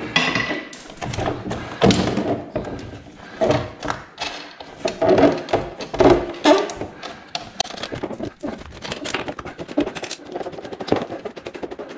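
Screws being undone on the wooden clamping frame of a DIY vacuum-forming table: an irregular run of knocks, clicks and thunks as the tool and frame are worked, with a few short brighter bursts a few seconds in.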